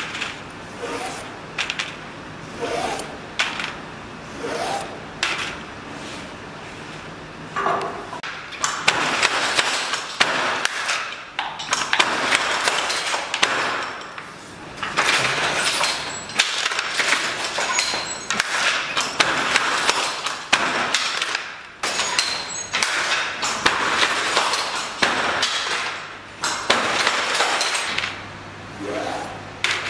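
Jacquard hand loom weaving silk velvet: repeated wooden knocks and clacks from the loom's working parts, with long stretches of scraping noise through the middle.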